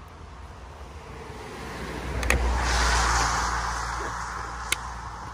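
A car passes by on a wet road: low engine rumble and tyre hiss swell to a peak about halfway through, then fade away. A couple of sharp plastic clicks are heard over it.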